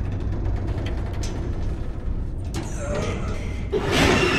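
Horror film soundtrack: a low rumbling drone with scattered clicks and rustling noise, growing louder near the end.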